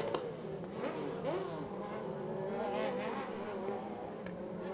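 A pack of off-road race buggies' engines buzzing together, several pitches rising and falling as the drivers rev and lift through the turns.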